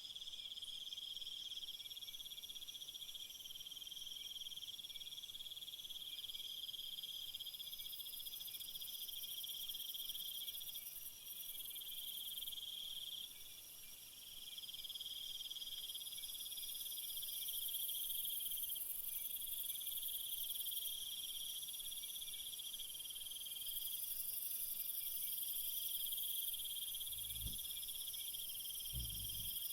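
Chorus of crickets and other insects: several high-pitched trilling calls at different pitches overlap, each starting and stopping in stretches of a few seconds. Two soft low thumps come near the end.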